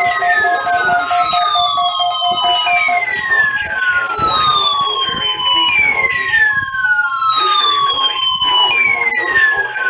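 Weather alert radio's alarm sounding a siren: a falling wail that repeats about every three seconds, with pulsing beeps alongside and a steady tone that stops about three seconds in, set off by the station's Required Weekly Test.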